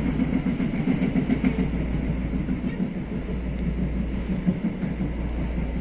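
TE-90 light rail train running along the track, a steady low rumble of wheels and running gear.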